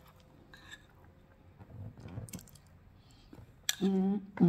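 A metal spoon clicking and scraping faintly in a ceramic bowl, with soft chewing, then a short hummed voice sound about four seconds in.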